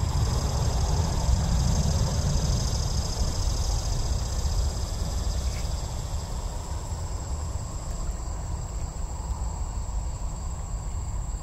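Distant jet airliner's engine rumble, low and slowly fading as the aircraft moves away. Under it, insects keep up a steady high-pitched trill.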